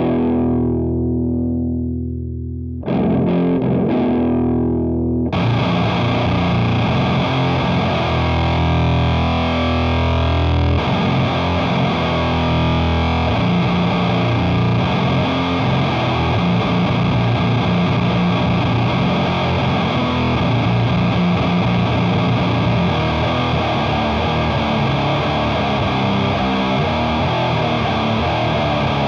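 Heavily distorted electric guitar playing a slow doom metal riff through the Doomsaw, a one-knob HM-2-style chainsaw distortion pedal. Two long chords ring out first, then about five seconds in the sound turns denser and harsher and the riff runs on without a break.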